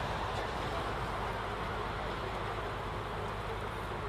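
A boat's engine running steadily while under way: a low, even drone under a constant rushing noise.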